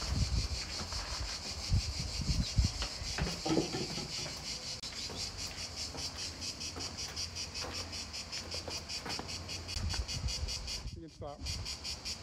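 A steady chorus of insects with a fast, even pulse. Low thumps of footsteps on the stone path come and go through it. The insect sound drops out briefly near the end.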